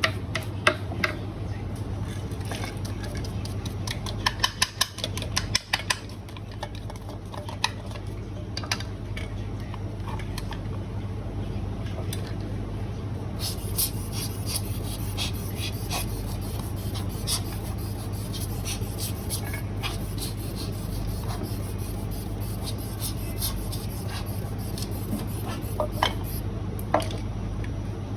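Metal parts of a coffee grinder clinking, scraping and being rubbed during cleaning, with a quick run of sharper clicks about four to six seconds in, over a low steady hum.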